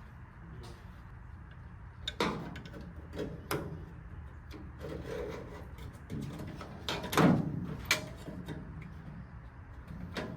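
Scattered knocks and clunks of parts and tools being handled during work on a pickup's tail and marker lights, the loudest about seven seconds in, over a steady low hum.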